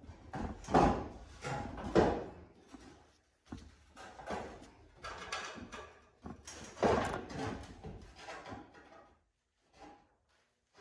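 Steel truck-frame section being test-fitted against the frame rail: a series of irregular metal clunks and scrapes as the piece is shifted into place.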